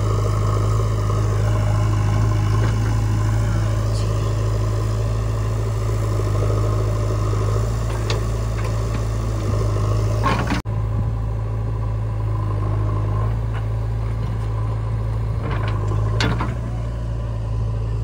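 Diesel engine of heavy earthmoving machinery running steadily with a deep hum, with a few short knocks about ten seconds in and again near the end. The sound changes abruptly partway through.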